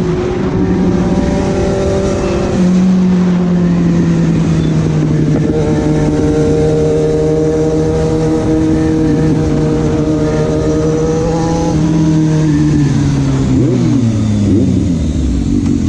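Suzuki GSX-S750's inline-four engine pulling the bike along at a steady pitch, which steps down slightly a few seconds in. Near the end the pitch falls away as the bike slows.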